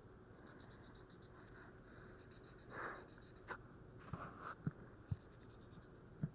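Faint scratching of a marker coloring on paper, with a few soft knocks in the second half.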